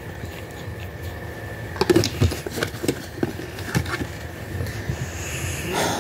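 Small cardboard product boxes being handled and shifted inside a cardboard shipping carton: a run of sharp knocks and taps about two seconds in, and a brushing scrape near the end.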